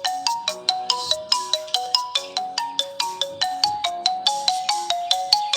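Phone ringtone playing from a ZTE Blade A30: a quick melody of short, sharply struck notes, about five a second.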